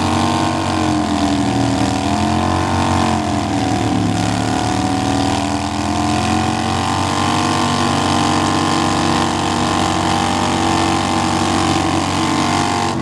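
Two Victory V-twin motorcycles, a Cory Ness Vegas Jackpot and an 8-Ball Kingpin, doing a burnout side by side: both engines held at high revs with the rear tyres spinning and smoking on the pavement. The engine pitch dips and climbs again a couple of seconds in, then holds steady, and the revs drop off right at the end.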